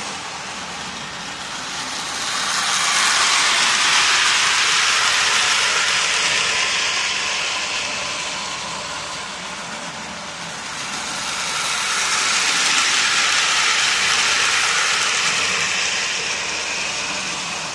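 Lionel O-scale toy steam locomotive and five freight cars running on three-rail track: a steady whirring rumble of the electric motor, gears and wheels on the rails. It grows louder twice, about nine seconds apart, as the train comes round the near side of the oval.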